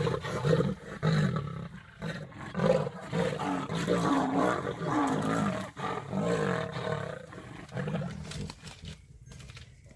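Big cats growling and roaring in a fight over prey, repeated calls that die down near the end.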